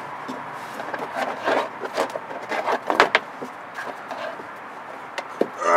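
Hands working at a spin-on oil filter and the parts around it under a car: scattered small clicks and knocks, with a sharper knock about three seconds in.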